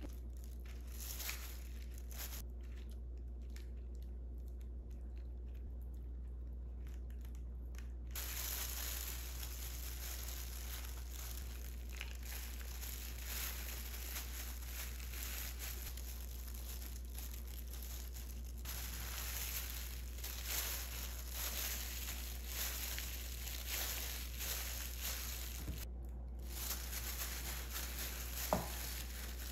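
Disposable plastic food-prep glove crinkling and rustling as the hands press lettuce onto rice and roll a seaweed-wrapped kimbap on a plastic cutting board, over a steady low hum. A single sharp tap comes near the end.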